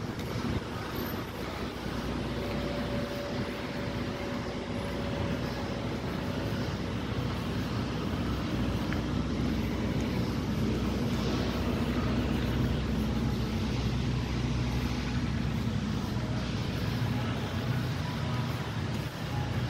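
Steady low hum of a vehicle engine running, over general street traffic noise.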